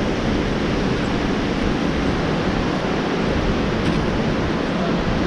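Steady rushing noise of a fast mountain river running white over boulders.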